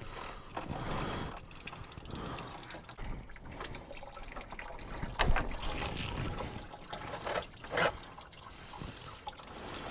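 Engine coolant trickling and dripping from the radiator drain into a catch pan, with a couple of sharp knocks about five and eight seconds in.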